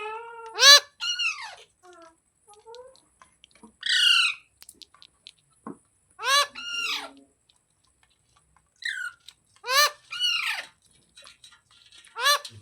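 Green parrot calling: short, shrill squawks, mostly in pairs about half a second apart, repeated every two to three seconds.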